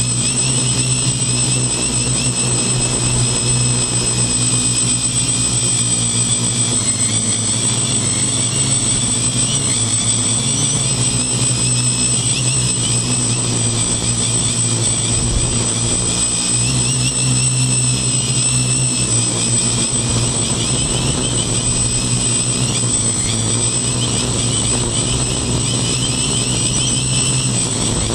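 Electric motors and propellers of a homemade quadcopter, heard through the phone strapped to its frame: a steady, loud hum with a high whine above it, the pitch wavering a little throughout.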